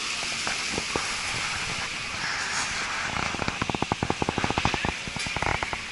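City street ambience: steady traffic and crowd noise. About halfway through, a fast regular run of clicks, roughly ten a second, lasts a little under two seconds.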